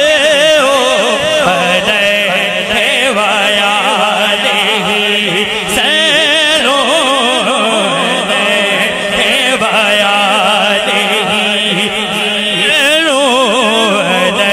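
A man singing a naat, an unaccompanied devotional Urdu-Punjabi hymn, into a microphone through a loudspeaker system. He holds long, wavering notes that glide up and down, over a steady low hum.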